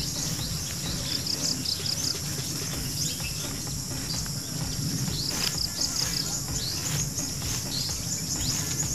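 Insects droning steadily, with short bird chirps now and then and a low steady hum underneath.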